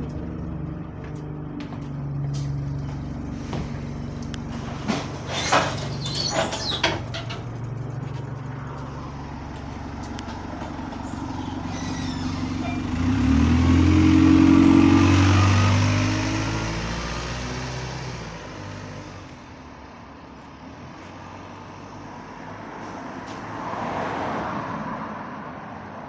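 Diesel bus engine heard from inside the bus, running in limp mode with kickdown disabled. A few sharp clicks and high squeaks come about five to seven seconds in, then the engine note rises as the bus pulls away, loudest about fifteen seconds in, and eases off a few seconds later.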